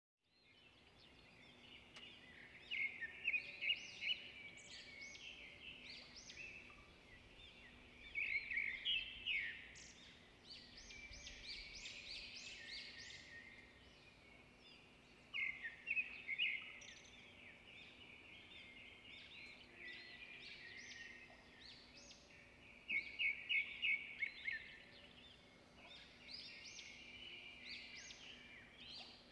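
Small birds singing in several bouts of rapid chirps and trills, over a faint steady hum.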